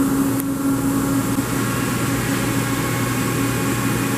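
Steady machine hum of a powered-up Mori Seiki SL-25M CNC lathe standing idle, a constant low hum with a higher tone above it.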